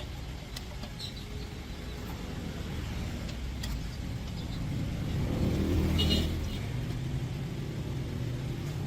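Truck engine running with a steady low rumble that rises to its loudest about five to six seconds in, with scattered clicks over it.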